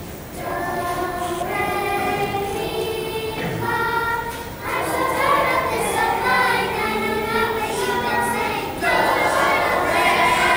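Children's choir singing together in unison, starting about half a second in, with held notes and two brief pauses between phrases.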